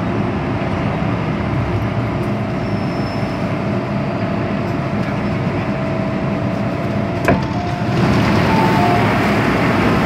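MTR M-Train electric multiple unit rumbling into a station, heard from inside the carriage, with a thin steady tone through the rumble. About seven seconds in comes a sharp clack as the doors release, and the sound then opens up louder with the doors open.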